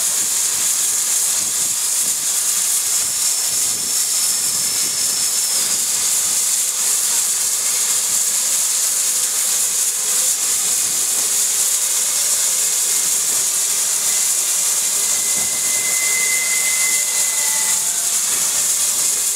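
GWR 5205-class 2-8-0 tank locomotive No. 5224 blowing off steam at its safety valves while standing at full pressure: a loud, steady high hiss that does not let up.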